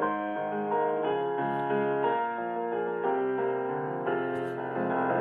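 Soft instrumental piano music: slow sustained notes and chords.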